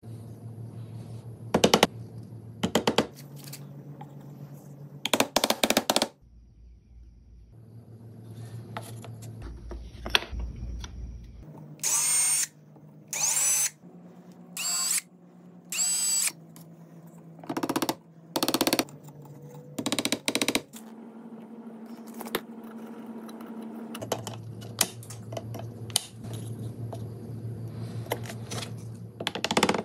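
Cordless drill/driver running in a series of short bursts, each about half a second, as it drives small fasteners into wood. Its pitch rises briefly at the start of each burst.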